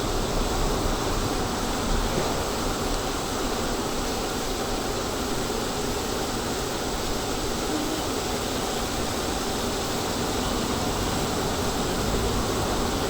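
Steady rushing noise of a range hood's exhaust fan running over a street-food cooking station.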